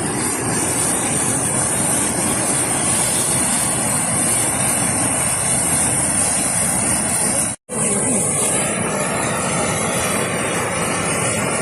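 Steady roar of fast-flowing floodwater, a loud even rushing noise with a hiss on top. It cuts out for an instant about two-thirds of the way through.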